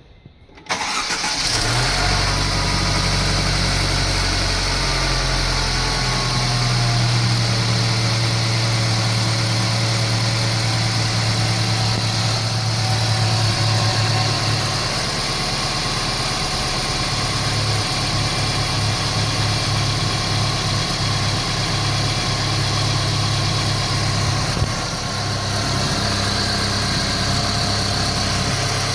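Mercedes-Benz C180 (W205) engine starting about a second in and then idling steadily, its idle note shifting a few times. The owner hears something knocking in the engine.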